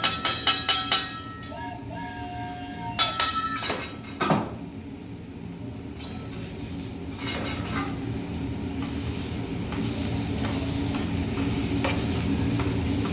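Food sizzling on a hibachi griddle, with a quick run of sharp metal clacks at the start and another short burst about three seconds in. The sizzle grows steadily louder toward the end.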